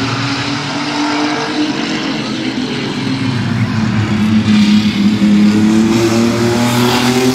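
A pack of mini trucks racing, several engines running together. About halfway through, the engines rise in pitch and grow louder as the pack accelerates out of the turn toward the fence.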